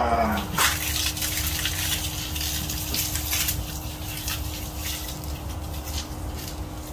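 Garden hose spraying a stream of water, splashing with an uneven hiss that surges now and then.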